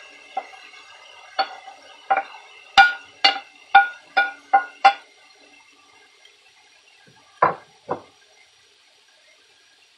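Wooden spatula knocking against a ceramic plate about eight times in quick succession, each knock ringing briefly, as cucumber and red pepper pieces are scraped off into a frying pan. Two duller, deeper knocks follow a few seconds later.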